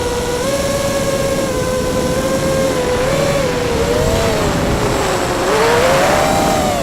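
Electric motors of an FPV model aircraft whining, the pitch wandering up and down with the throttle. About five and a half seconds in the motor tones split apart and rise under a rush of air noise.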